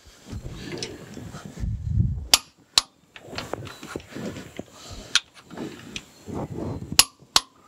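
Long click-type torque wrench ratcheting on the steam chest cover nuts, letting out several sharp clicks, often in pairs, as it reaches its set torque.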